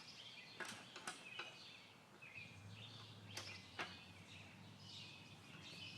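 Near silence: faint outdoor background with light bird chirps and a few brief, light clicks.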